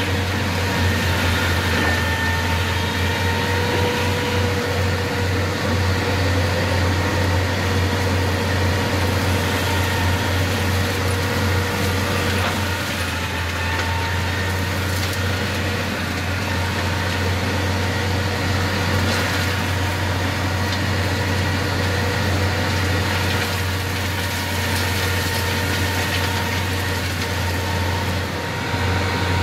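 New Holland TVT155 tractor's six-cylinder diesel running steadily with its front-mounted Maxer forestry mulcher rotor spinning, heard from inside the cab: a steady low drone with a high whine over it.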